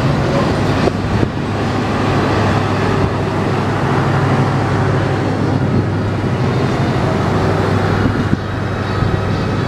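Steady motor-vehicle traffic noise with a continuous low engine hum, no single event standing out.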